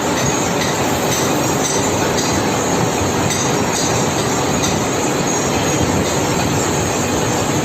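Lathe turning a steel bracket, the cutting tool working the metal: a loud, steady machining noise with faint high-pitched tones over it.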